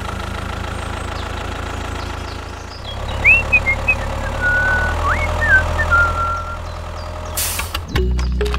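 Tractor engine running steadily at a low idle-like drone as the tractor pulls a harrow, with a few short high chirps in the middle. Music comes in near the end.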